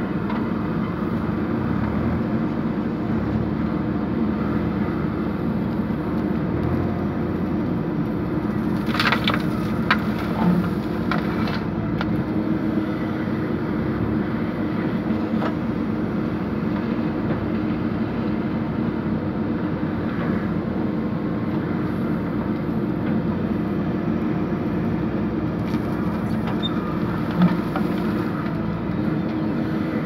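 JCB 3DX backhoe loader's diesel engine running steadily while the backhoe digs, with a brief spell of clattering about nine seconds in and a single sharp knock near the end.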